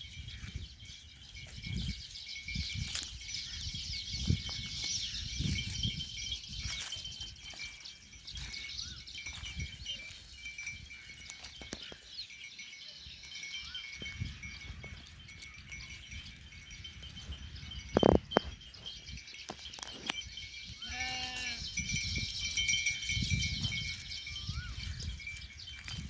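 A sheep bleats once about 21 seconds in, over a steady high-pitched ringing and a fluctuating low rumble. A single sharp knock comes about 18 seconds in.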